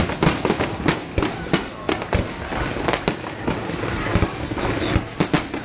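Fireworks display: a dense, irregular barrage of bangs, several a second, over continuous crackling.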